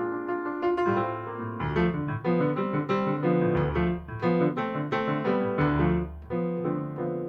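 Jazz piano playing chords over low bass notes, each struck chord ringing and fading.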